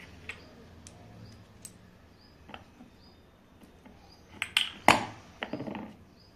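Clicks and knocks of metal ceiling fan motor parts being handled on a wooden table, the wound stator and its shaft set against the rotor housing. The knocks are sparse at first, with the loudest few coming together about four and a half to five seconds in and a short rattle just after.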